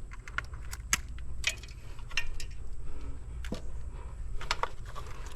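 Scattered light clicks and taps of small hardware being handled while a floodlight mounting bracket is worked on, over a steady low rumble.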